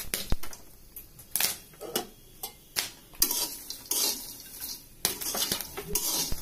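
Popcorn being stirred in a frying pan on the stove: irregular scraping and clinking against the pan, with the popped kernels rustling.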